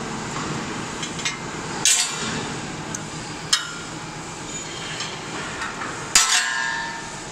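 Sharp metallic clanks of steel being knocked and handled at the machine's long sheet-steel channel, four in all, over steady workshop noise; the last and loudest, near the end, rings on for about a second.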